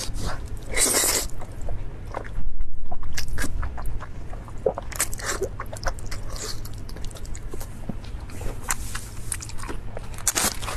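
Close-miked biting and chewing of braised pork knuckle: a run of irregular mouth clicks and snaps, with a short hissy burst about a second in.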